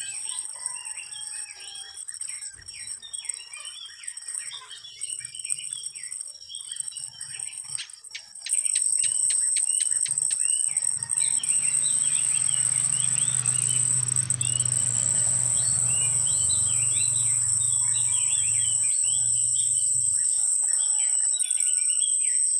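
Steady high-pitched insect drone with many birds chirping over it. The drone grows louder about eight seconds in, and a low hum joins for several seconds in the middle.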